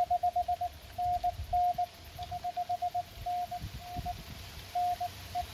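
Morse code (CW) from a Mountain Topper 4B QRP transceiver: a single steady tone keyed in quick runs of dits and dahs, some runs louder than others.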